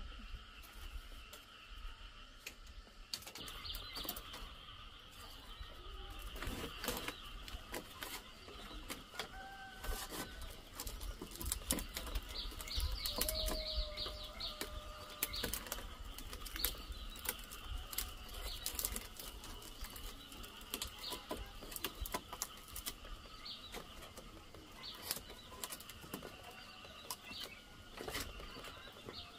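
Scattered knocks and taps from hand building work with wood, over a steady high drone, with a few short bird calls in the middle.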